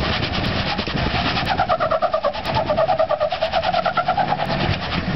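Lifted Toyota Hilux 4WD climbing a rock ledge, its engine working under load with a fast rhythmic pulsing. A wavering high whine runs through the middle of it.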